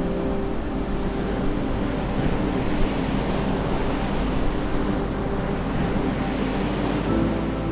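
Ocean surf: a dense, steady wash of breaking waves that swells and eases. Music comes back in near the end.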